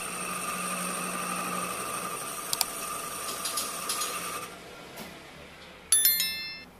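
Metal lathe running with its tool cutting into an aluminium motorcycle cylinder head: a steady machine whine that drops off about four and a half seconds in, with a few sharp clicks midway. Near the end comes a bright bell ding that rings and fades.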